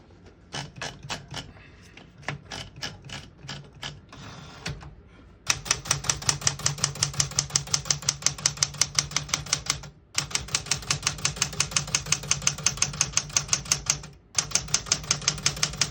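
Keys of a 1971 Smith-Corona Super Sterling manual portable typewriter being typed: lighter, uneven clicking at first, then from about five seconds in a fast, even run of sharp strikes, about eight a second, with two short pauses.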